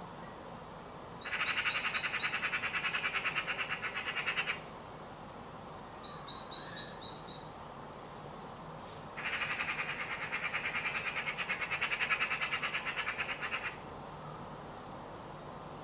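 Eurasian magpie giving its harsh chattering rattle, a rapid run of evenly spaced notes, in two bouts of about three and four and a half seconds: the alarm chatter magpies use when mobbing a cat. Between the bouts a small bird gives a brief high twitter.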